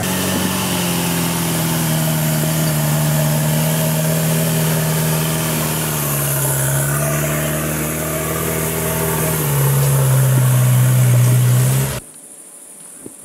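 Modified off-road 4x4's engine running under load as it crawls up a muddy slope. Its pitch dips about six seconds in, it gets louder from about nine and a half seconds in, and the sound cuts off abruptly about twelve seconds in.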